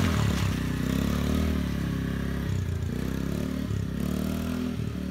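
Yamaha Raptor 90 youth quad's 90cc four-stroke single-cylinder engine running as the quad rides away, its pitch dipping briefly several times and the sound slowly fading with distance.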